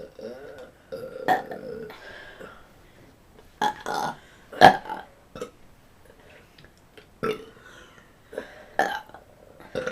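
Girls burping: a run of short burps, one after another with brief pauses between them. A sharp knock about halfway through is the loudest moment.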